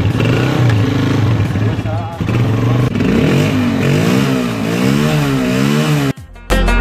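Honda motorcycle's single-cylinder engine, just kick-started, running steadily. From about three seconds in it is revved up and down again and again, and the sound cuts off suddenly near the end.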